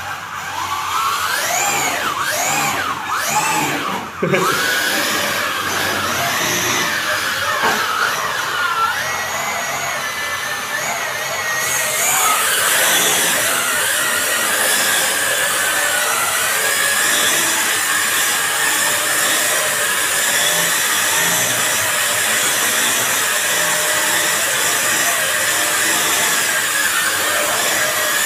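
WLtoys V333 quadcopter's electric motors and propellers revving up and down several times, with a sharp knock about four seconds in, then running steadily with a high whine.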